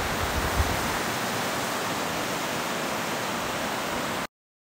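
Shallow, rocky river rushing steadily over stones in riffles, a constant even rush of water. It cuts off suddenly about four seconds in.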